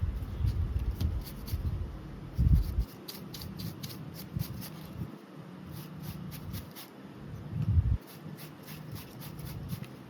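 Hand-work noise on a small camera being taken apart: rapid light clicks and ticks of tools and small parts, over low rubbing and handling, with two louder dull thumps, about two and a half seconds in and near the end.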